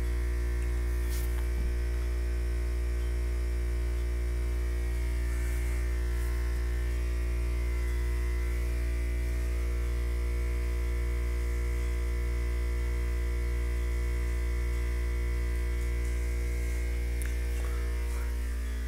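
A steady deep hum with a stack of fainter steady tones above it, like mains-electric humming.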